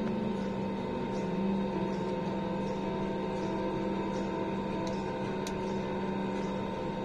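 Steady drone of an airliner's jet engines heard from inside the cabin while the plane taxis, with a constant low hum and a fainter higher whine.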